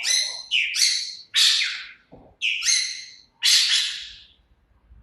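A small bird giving harsh, raspy squawking calls, five in a row at roughly one-second intervals, each lasting under a second.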